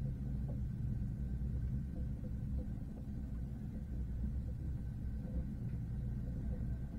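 Train running, heard from inside the carriage: a steady low rumble with a faint, steady high tone above it.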